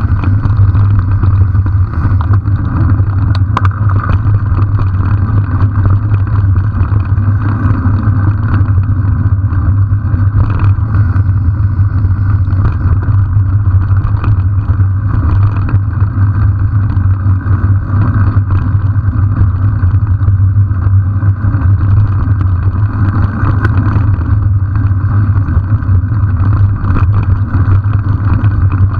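Steady wind buffeting and rumble from a bicycle-mounted camera riding a rough dirt track, loud and unbroken.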